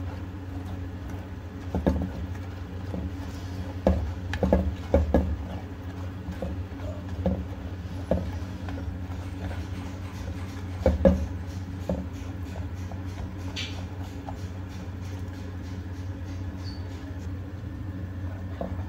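A black spatula stirring tomato masala in a clay handi, with scattered knocks and scrapes against the clay pot, the loudest about eleven seconds in, over a steady low hum.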